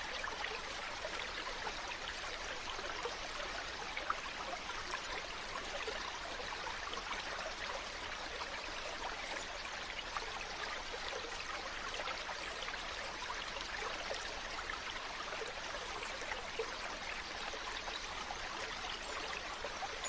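Mountain stream flowing, a steady, unbroken rush of water with small splashes running through it.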